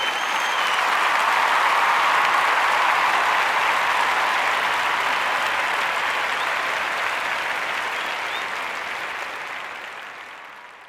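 Crowd applause, fading in smoothly, holding steady for about ten seconds, then fading out: an applause sound effect added in the edit.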